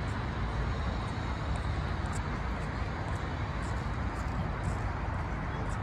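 Steady outdoor city background: a low rumble under an even hiss, with faint high ticks now and then.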